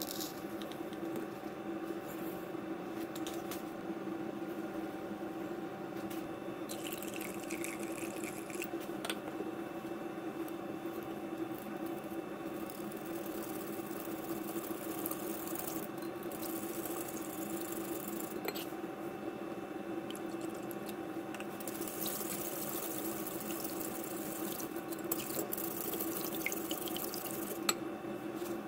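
Water running from a kitchen tap in several spells, over a steady hum.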